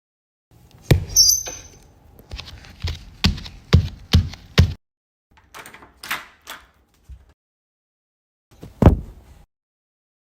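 Household Foley sound effects in sequence: a stomp, then a short high screech from a metal lid, then about six footsteps from walking in place. A door opening follows, and near the end a pillow hits a couch with a soft thump.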